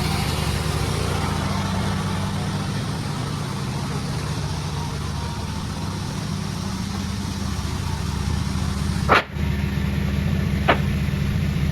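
Sawmill's engine running steadily at low speed, with two sharp knocks about a second and a half apart near the end.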